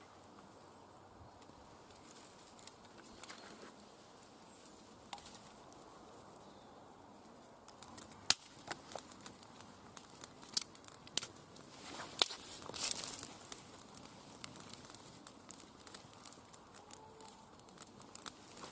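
A small fire of feather sticks crackling as it catches. It is faint at first, then gives a busy run of sharp pops and snaps from about eight seconds in.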